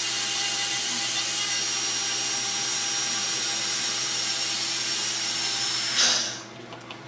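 High-speed dental handpiece with a diamond bur cutting into a stone model tooth: a steady high-pitched whine over a cutting hiss. It swells briefly and stops about six seconds in as the handpiece is lifted off.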